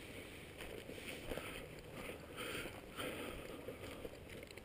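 Faint, irregular rustling of footsteps through dry grass, with soft swishes about a second, two seconds and three seconds in.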